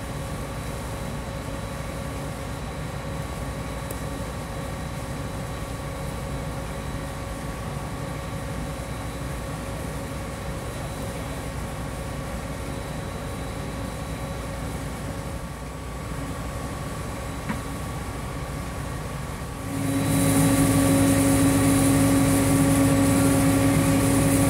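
Water-well drilling rig running steadily: a constant machine hum with several held tones. About twenty seconds in it becomes much louder, with a strong low hum.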